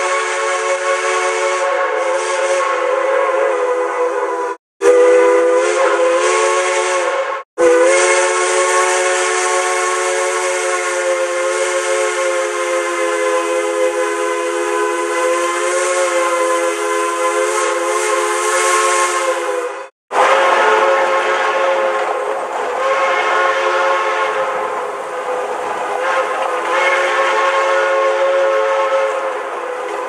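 Central Railroad of New Jersey three-chime steam whistle blowing long blasts of one steady chord. It breaks off abruptly about four and a half, seven and a half and twenty seconds in. After the last break the chord is weaker, with more steam hiss.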